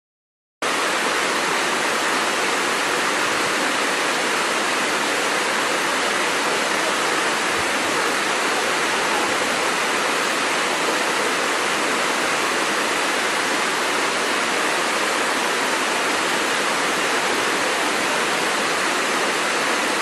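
Waterfall: a steady, even rush of falling water that starts abruptly about half a second in.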